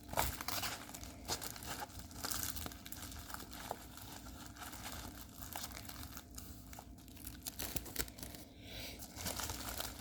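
Packaging crinkling and rustling in irregular bursts with small clicks, as a diamond painting kit is handled and unwrapped.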